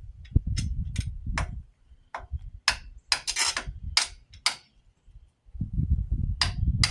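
Sharp metal-on-metal taps and clinks, about a dozen at uneven intervals with a pause in the middle, as a hammer taps a bolt through the excavator quick hitch's mounting holes. A low rumble sits under some of the taps.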